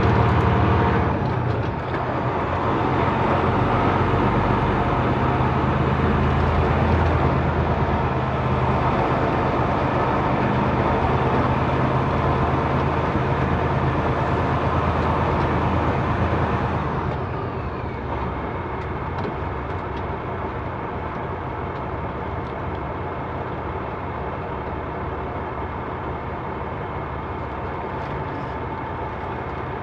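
Semi-truck diesel engine running as the truck rolls slowly. About seventeen seconds in, the engine note drops lower and quieter, and a faint steady high tone carries on.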